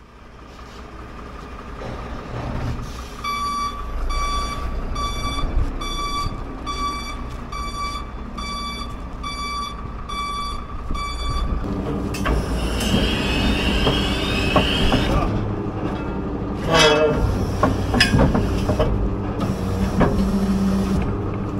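Tow truck reversing, its back-up alarm beeping about one and a half times a second over the running truck engine. After the beeping stops, the engine keeps running, with a squeal and then loud metal clanks and knocks as the steel tow fork gear is handled at the truck's rear.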